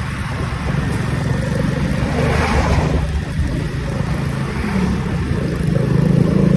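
Motorcycle engine running steadily, its note shifting a little in pitch, with a rush of noise swelling and fading about two seconds in.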